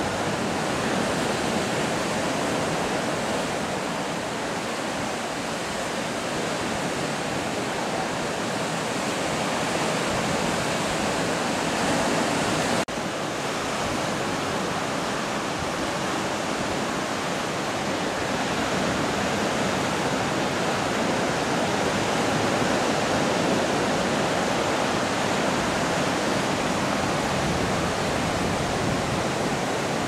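Caribbean Sea surf breaking on a rocky shore: a steady rush of waves, with a momentary dropout about thirteen seconds in.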